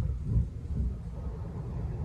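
A low, uneven rumble with no clear pitch.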